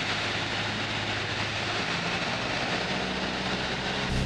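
Piper PA-28's piston engine droning steadily, with rushing airflow, heard from inside the cabin on approach to landing. The low hum gets louder just before the end.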